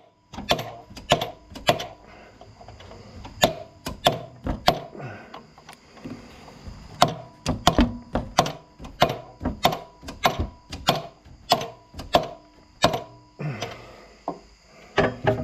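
Hammer blows on a metal driver sleeve, driving a new armature bearing onto the shaft of a Lincoln Ranger 300DLX welder's generator. A string of sharp knocks comes about two a second, broken by short pauses.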